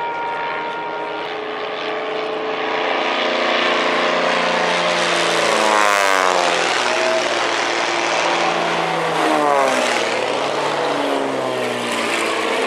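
Several propeller aircraft fly low overhead in formation. The engine drone builds and then drops in pitch as the planes pass, once about six seconds in and again near ten seconds.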